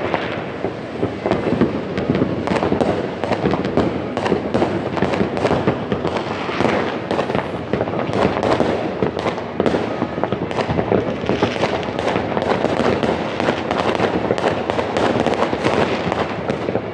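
Dense New Year's fireworks and firecrackers going off all around without pause: a continuous crackle of overlapping bangs and sharp cracks.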